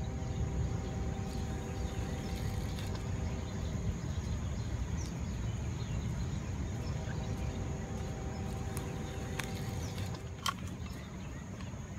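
Outdoor riverside ambience: a steady high insect trill over a low rumble of wind on the microphone, with a faint hum that fades in and out twice and a single sharp click about ten and a half seconds in.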